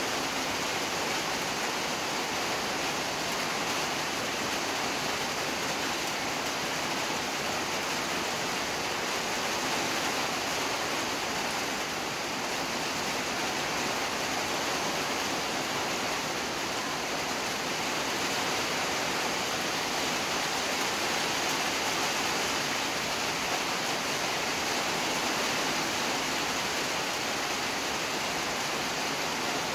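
Rosogollas boiling hard in sugar syrup in a large pan on a burner: a steady rushing, bubbling hiss that does not change.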